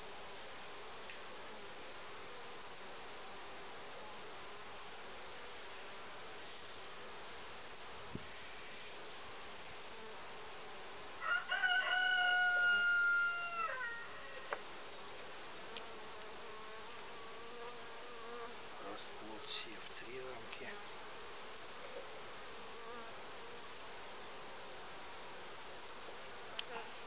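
Honeybees buzzing steadily over an open hive as brood frames are lifted, a calm colony. About eleven seconds in, a rooster crows once, a single call held for about two and a half seconds that drops off at the end.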